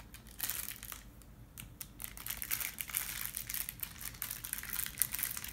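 Crinkly plastic toy wrapper being crumpled and pulled open by hand, in quick irregular crackles that thin out for a moment about a second in and then grow busier.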